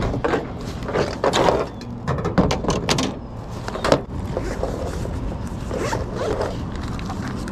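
Zipper on a fabric tackle pouch being pulled open in a series of short, irregular rasps, with the cloth rustling as it is handled. A steady low rumble runs underneath.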